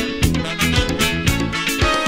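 Instrumental stretch of a 1982 band recording, with no singing: guitar lines over bass and a steady drum beat.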